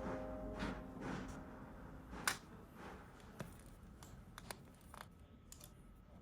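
Faint, scattered small clicks and light taps, about ten over a few seconds with the loudest about two seconds in, from small tools and parts being handled during laptop repair work.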